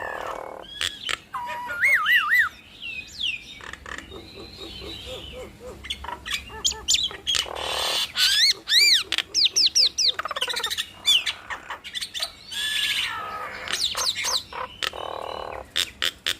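Jalak Nias starlings singing in a duet: a busy run of varied whistles gliding up and down, rapid repeated notes, harsh raspy calls and sharp clicks.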